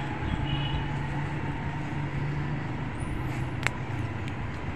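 Steady low background hum, with one sharp snap about three and a half seconds in: a moringa (malunggay) pod being broken off its stem by hand.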